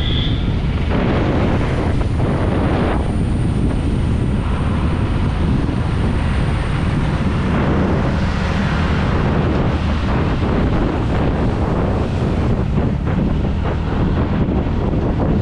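Wind noise buffeting an action camera's microphone while riding a TVS Ntorq 125 scooter, with the scooter's engine and road noise underneath, steady throughout. Passing traffic adds a hissing swell about halfway through as a large bus goes by close alongside.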